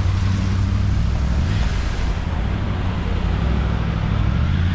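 Steady road traffic noise from cars at a busy city intersection: a continuous low rumble, with a louder passing hiss about a second and a half in.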